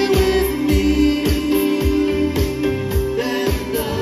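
Live band playing amplified pop-rock: electric bass, drum kit and keyboards, with a steady drum beat about twice a second under long held notes.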